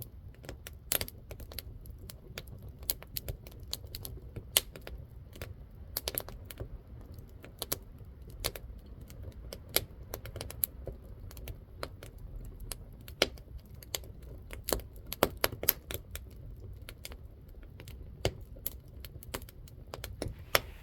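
Burning firewood crackling, with irregular sharp pops and snaps over a low rumble of flame.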